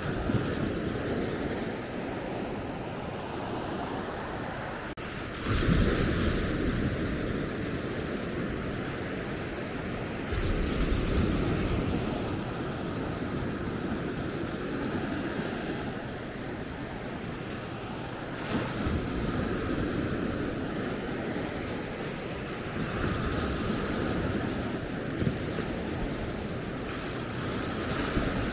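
Sea waves breaking on a sandy beach: a steady wash of surf, swelling four times as waves come in, each surge starting sharply and then fading.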